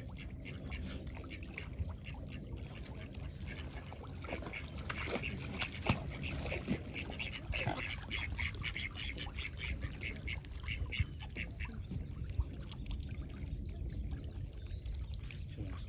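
Birds calling: a rapid series of short, repeated calls from about five to eleven seconds in, over a steady low rumble.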